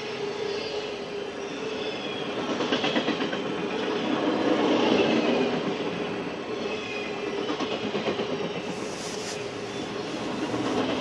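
Intermodal freight train of trailers on flatcars rolling past, a steady rumble and rattle of steel wheels on rail with clickety-clack over the joints and a faint thin squeal from the wheels.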